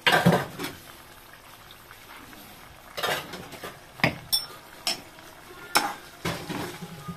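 Thick ground masala paste poured onto chicken frying in a nonstick pot, with a splatter and clatter at the start. From about three seconds in, a spatula scrapes and knocks against the pot as the paste is spread, about one stroke a second.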